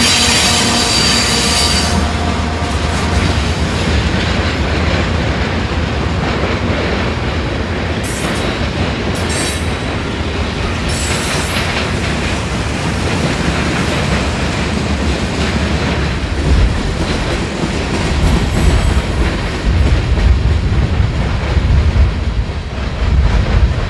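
Freight train's cars rolling past on the rails: a steady loud rumble, with brief high wheel squeals about a third of the way in and uneven clacking thumps of wheels over rail joints through the second half.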